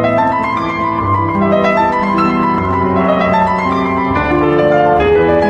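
Instrumental piano music: a flowing passage of held notes and chords over a low bass line.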